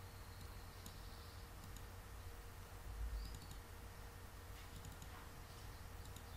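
Faint computer mouse clicks over a low steady hum.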